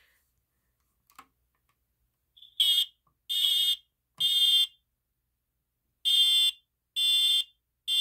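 Old ceiling smoke alarm sounding its test alarm after a faint click: two sets of three short, high-pitched beeps with a pause between, the three-beep temporal pattern. The owner judges this alarm no good.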